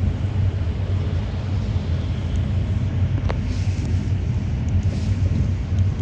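Steady low rumble of a route minibus on the move, engine and road noise heard from inside the cabin, with a single sharp click about three seconds in.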